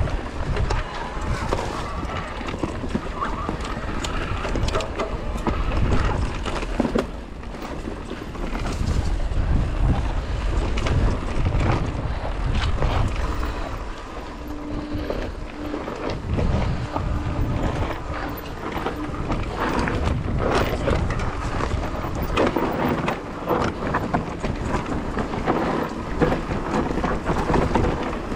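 Wind buffeting the microphone over the rumble, rattling and knocking of an electric mountain bike riding over rough trail, with frequent short clacks.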